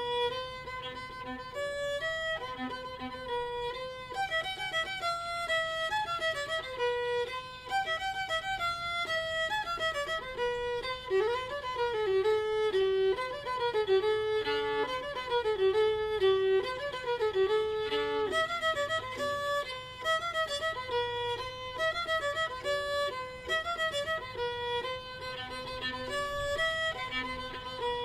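Background fiddle music: a melody of held and gliding notes.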